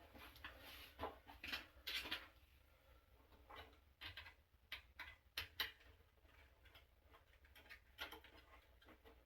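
Faint, irregular clicks, taps and scraping from hands and tools working a water heater's thermostat and wiring, with a few sharper knocks spread through.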